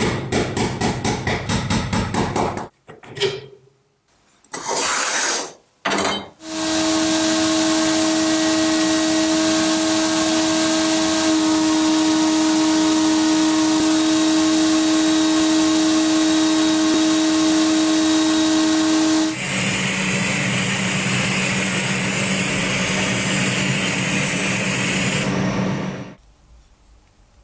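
Restoration work on old metal parts: quick repeated scraping strokes, then a small electric power tool running at a steady speed for about thirteen seconds, followed by a different hissing machine noise for about six seconds that stops suddenly.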